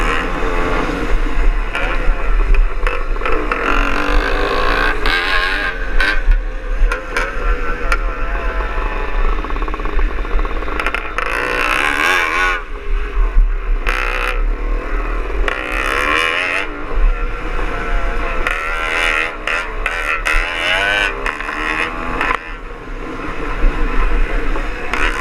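Two-stroke Greeves Hawkstone scrambler engine under way, its revs rising and falling as it rides a rough grass track, with a low rumble of wind buffeting the bike-mounted microphone.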